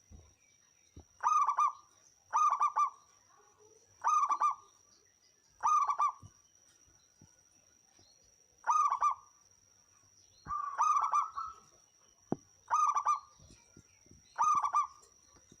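Zebra dove (perkutut) cooing: eight short, rolling coos, each about half a second, with a longer pause partway through the series. A faint steady high-pitched whine runs underneath.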